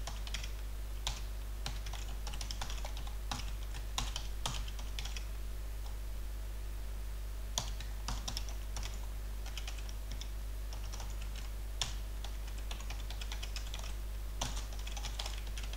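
Computer keyboard typing: irregular runs of keystroke clicks with short pauses between them, over a low steady hum.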